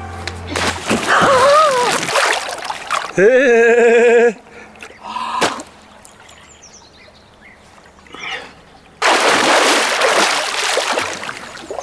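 Water splashing in a swimming pool, a splashy burst at the start and another about nine seconds in. Between them a voice holds a wavering note for about a second.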